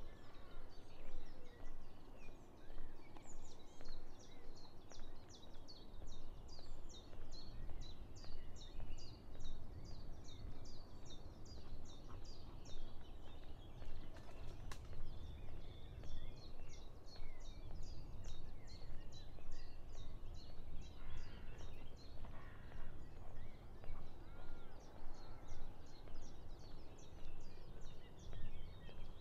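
Outdoor birdsong: one songbird sings long runs of quick, high, downward-sweeping notes, about four or five a second, three times over. Other birds chirp more faintly. Underneath is a steady low rumble.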